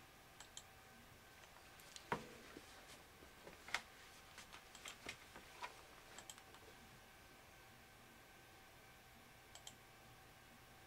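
Faint, scattered clicks and taps of a computer keyboard and mouse, most of them in the first seven seconds and a last pair near the end, over quiet room tone.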